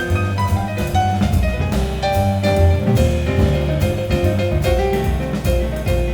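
Instrumental jazz with a strong, deep bass line, piano and drum kit playing a light rhythm with cymbal strokes.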